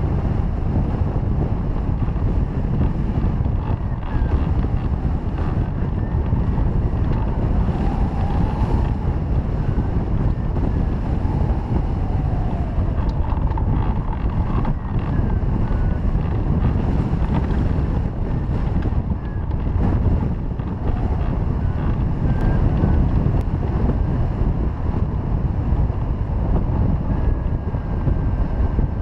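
Wind rushing over the microphone of a camera mounted on a hang glider in flight: a loud, steady, low buffeting rumble.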